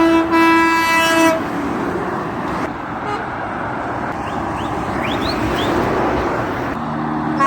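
Truck horn sounded twice, a short toot and then a blast of about a second, over steady road traffic noise. Near the end a lower-pitched horn begins to sound.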